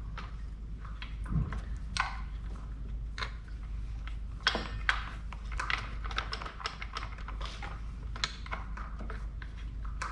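Irregular light clicks and metal-on-metal taps as a Honda CB900C engine cover is worked by hand onto its dowel pins on the crankcase.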